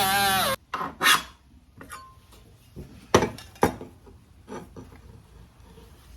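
A power tool running with a wavering pitch stops suddenly about half a second in. After that come a few scattered knocks and scrapes of metal parts being handled and fitted, the sharpest about three seconds in.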